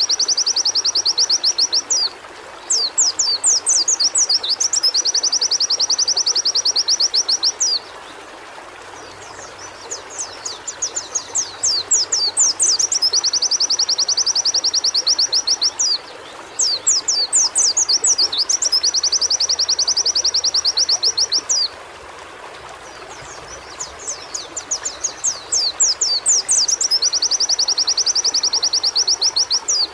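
White-eye (pleci) singing in repeated phrases about every six seconds, each a few quick high chirps leading into a long, very fast high trill. Under it runs a steady hiss of running water.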